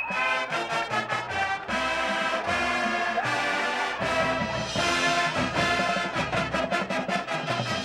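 High school marching band playing: full brass section over regular percussion hits.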